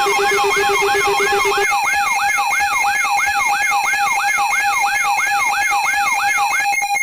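Loud layered electronic alarm tones of a mock emergency alert. A siren-like wail sweeps up and down about two and a half times a second over a steady high tone, with a lower pulsing beep that stops early. Near the end the wail gives way to a fast-pulsing beep.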